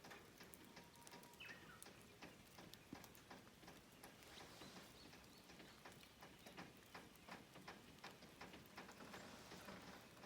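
Faint patter of light rain: scattered, irregular small ticks of drops, with a brief faint chirp about a second and a half in.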